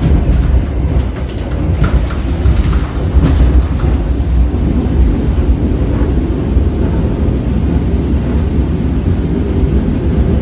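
SKM local electric train running, heard from inside the carriage as a loud, steady low rumble. A thin high whine comes in for about two seconds midway.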